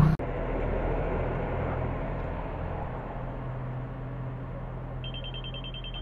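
Digital tyre inflator at a petrol station giving a rapid run of short, high electronic beeps near the end as its keypad is pressed, over a steady low hum.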